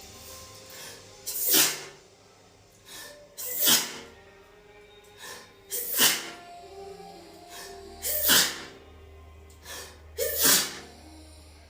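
A woman sneezing five times in a row, about one sneeze every two seconds, each a short voiced catch followed by a sharp blast of breath. Music plays softly underneath.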